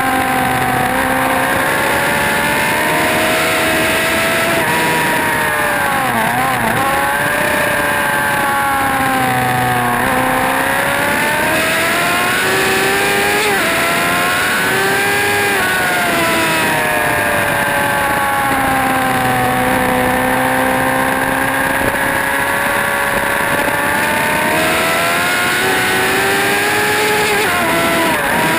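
Motorcycle engine at track speed, its pitch climbing and falling over several seconds at a time as it accelerates and slows through corners. It drops quickly through gear changes about six seconds in and again near the end, over a steady rush of noise.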